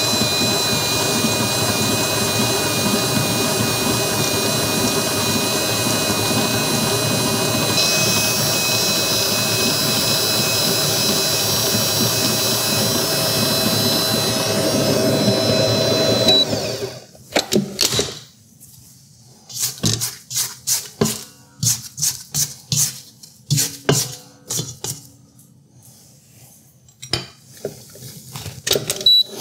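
Vevor 7.4-quart stand mixer running steadily with its stainless steel paddle, creaming butter and sugar: a constant motor hum with a thin high whine. About sixteen seconds in the motor stops, and a string of irregular clicks and knocks follows.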